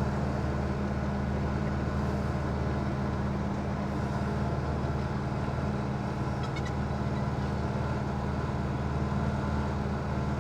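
Mercruiser 120 hp four-cylinder sterndrive engine running steadily.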